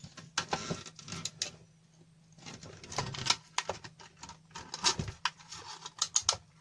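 Irregular clicks and knocks of a computer power supply's circuit board and parts being handled and turned over, with a short quiet pause about two seconds in.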